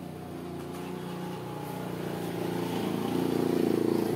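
A motor running steadily with a low buzzing hum that grows louder toward the end.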